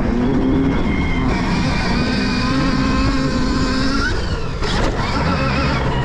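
Stark Varg electric motocross bike's motor whining under throttle, its pitch rising and falling, over a steady rumble of riding noise. The whine drops away briefly about four and a half seconds in, then picks up again.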